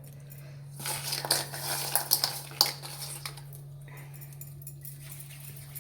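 Cutlery clinking and scraping against a dish in a quick run of clicks for about two and a half seconds, then a few more clicks near the end, over a steady low hum.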